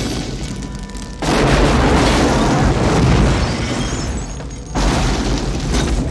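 Film explosions: a sudden blast about a second in and another near five seconds, each a loud rush of noise that dies away over the next few seconds. A film score plays underneath.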